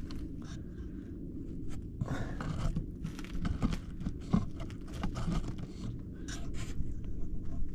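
Scattered small scrapes, crunches and clicks of a bricklayer moving about on gritty, rubble-strewn ground, over a steady low rumble.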